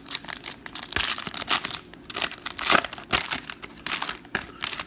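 Foil trading-card pack wrapper crinkling and tearing as it is ripped open by hand, in a dense run of sharp crackles.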